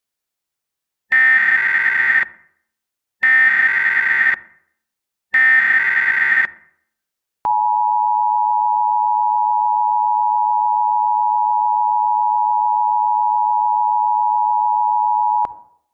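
Mock Emergency Alert System alert tones: three roughly one-second bursts of screechy SAME header data, then the steady two-tone EAS attention signal held for about eight seconds. The alert opened here is an administrative message.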